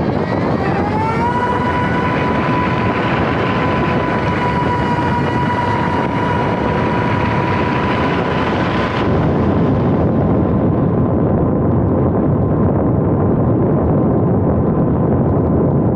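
Electric motor and propeller of a small RC foam plane whining in flight, rising in pitch about a second in and then holding steady, under heavy wind rush on the onboard camera's microphone. The upper hiss of the wind thins out about nine seconds in.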